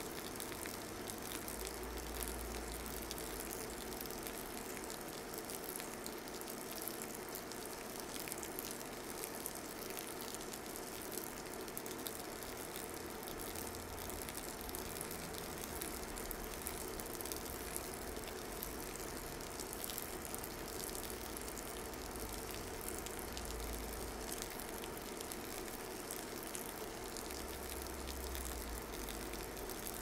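A thin stream of hot water poured slowly and steadily from a drip kettle onto coffee grounds in a paper filter during a hand-drip pour-over, a steady soft trickle. A faint low hum comes and goes a few times.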